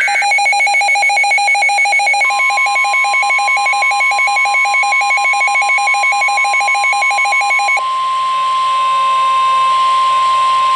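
A weather radio's electronic alert beeping in rapid, even pulses until about three-quarters of the way through. Under it, the NOAA Weather Radio warning alarm tone, a single steady high tone, starts about two seconds in and holds to the end; it signals that a warning such as a severe thunderstorm warning follows. A brief warbling data burst, the end of the SAME alert header, is heard at the very start.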